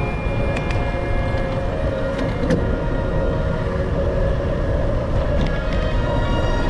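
Wind rushing over a handlebar-mounted camera with the rumble of bicycle tyres rolling on an asphalt trail. A few light clicks, like the bike rattling over small bumps, come about half a second in, around two and a half seconds in, and again near the end.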